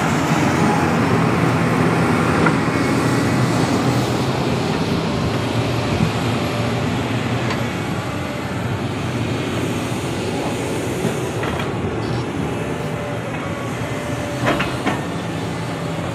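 SANY SY365H hydraulic excavator's diesel engine running steadily while the machine digs, slowly easing in level, with a few short knocks near the end.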